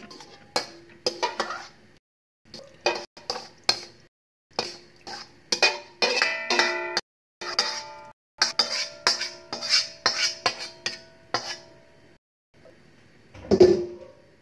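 A metal utensil scraping and clanking against a stainless steel bowl and an aluminium wok while marinated chicken is moved from one to the other. Many of the strikes leave the metal ringing. A heavier clank comes near the end.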